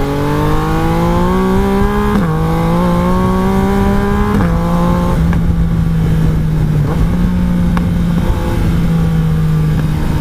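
Yamaha Tracer 900 GT's three-cylinder engine accelerating hard, its pitch climbing, then dropping sharply twice, about two and four seconds in, as the quickshifter snaps through upshifts. After that it settles to a steady cruising note.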